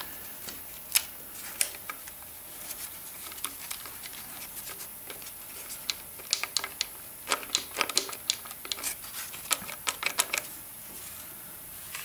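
Scattered light metallic clicks and rattles of a BMW N54 engine's timing chain and guide rail being worked by hand at the nose of the crankshaft. The clicks come in denser clusters from about six seconds in.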